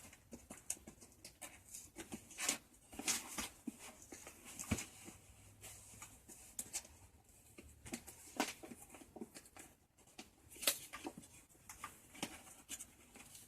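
A taped parcel being worked open by hand: an irregular run of scratching, crinkling and scraping at the packaging, with a sharp click at the start.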